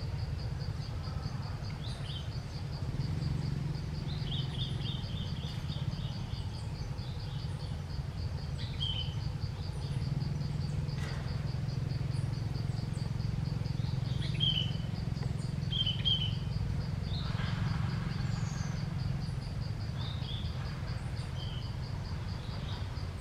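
Forest ambience: an insect trills steadily in fast, even pulses at a high pitch, with scattered short bird chirps and a steady low background rumble. The insect trill stops abruptly at the end.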